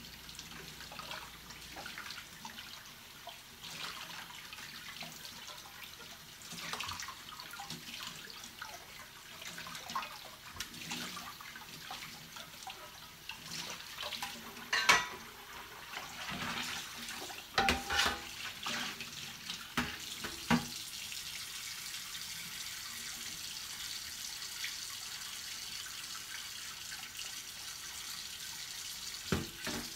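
Kitchen tap running into a stainless steel sink while dishes are washed by hand, with a few sharp clinks and knocks of dishes and a pan about halfway through; after that the water runs on steadily.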